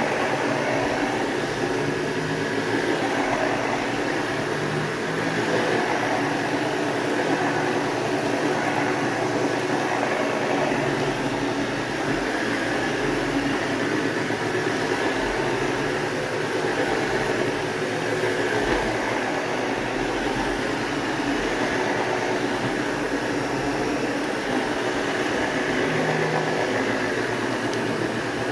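Sebo 360 vacuum cleaner running steadily while vacuuming carpet, its motor and brush roll giving a fairly quiet, even hum and whoosh.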